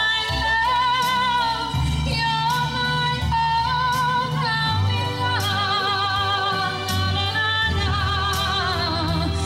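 A woman sings live into a microphone, holding long notes with vibrato, over instrumental accompaniment with bass and percussion.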